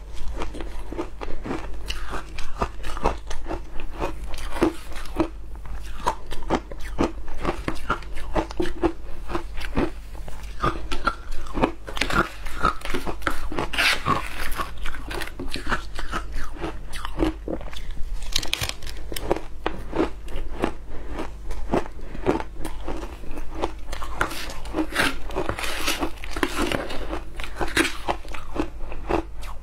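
Close-miked crunching and chewing of matcha shaved ice: a dense run of brittle crunches. A metal spoon scrapes and scoops through the ice in a plastic tub, loudest about halfway through and again near the end. A steady low hum runs underneath.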